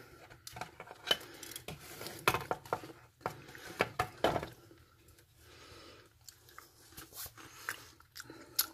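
Crackers and paper sachets being set down and shuffled about on a stainless steel compartment tray: a string of light clicks, knocks and paper rustles, with the sharpest knocks in the first half.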